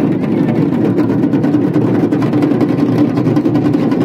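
Loud, steady din of a huge packed crowd, heard close on the microphone.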